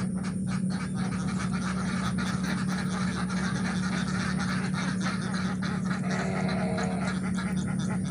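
Repeated animal calls in quick succession over a steady low hum.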